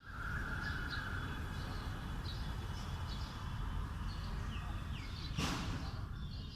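Small birds chirping over a steady low rumble, with one short burst of noise about five and a half seconds in.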